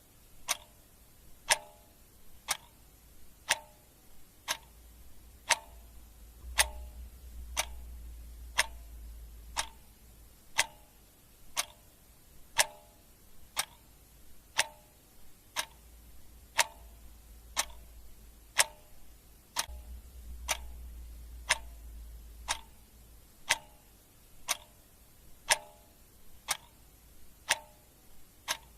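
Clock ticking steadily, about one tick a second.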